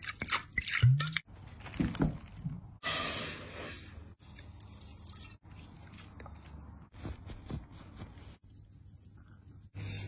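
Wet food-prep sounds in a quick series of separate takes: red wine poured and splashing into a glass dish over a beef tongue, then wet squishing and scraping as the tongue is worked by hand in the marinade.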